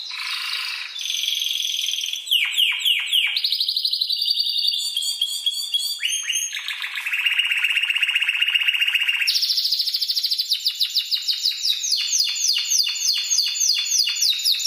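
Spanish timbrado canary singing a long, continuous master (tutor) song: fast trills and rolls alternate with runs of quick falling sweeps, each phrase lasting a second or two before the next takes over.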